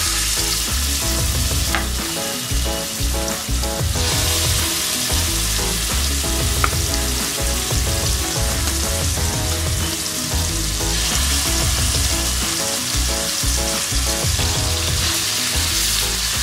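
Marinated chicken drumsticks sizzling steadily as they fry in hot oil and melted butter, with a couple of light clicks.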